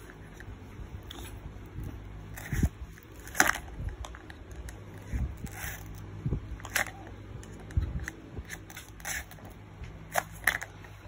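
Plastic toy knife and plastic toy fruit pieces knocking and scraping together as they are cut and handled: irregular short crackly rasps and clicks with a few soft thumps.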